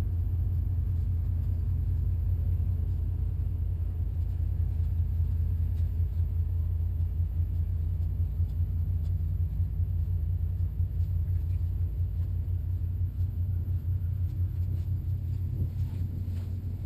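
Tug's diesel engine running at a steady low rumble with a fast, even throb, easing off slightly in the second half.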